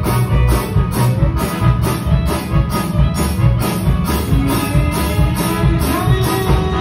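Loud music with heavy bass and a steady beat, about two and a half beats a second.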